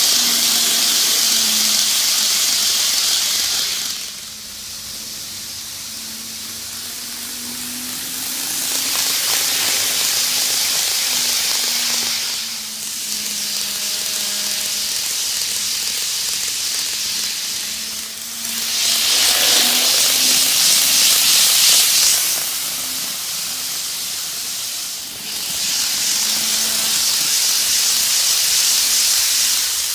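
N-gauge model of a Tokyu 5050-series train running laps: a low motor hum under a hissing wheel-on-rail rolling noise that swells each time the train passes close, four times.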